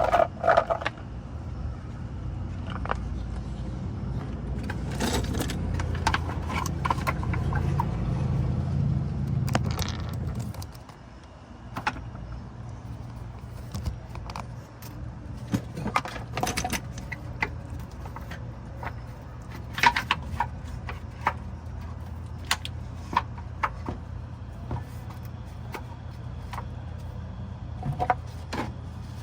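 Light metallic clinks and rattles of a part and hardware being handled and worked back into place under a car, scattered and irregular, over a steady low hum.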